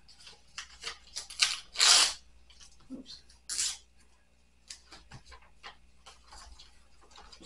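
Checks, envelopes and papers being handled on a table: a run of short rustles and scrapes, the loudest and longest about two seconds in, then lighter clicks and rustles.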